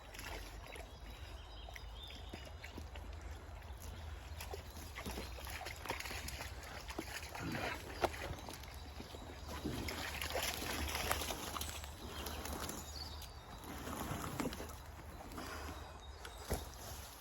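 Rustling and scraping in wet forest litter as a heavy log is moved, with a sharp knock about eight seconds in.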